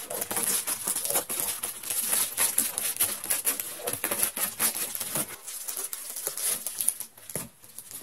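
Scissors cutting through a plastic bubble mailer, with the plastic crinkling and crackling irregularly as it is handled.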